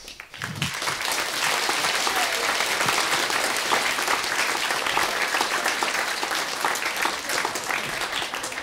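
Audience applauding: many hands clapping, starting about a second in and thinning out near the end.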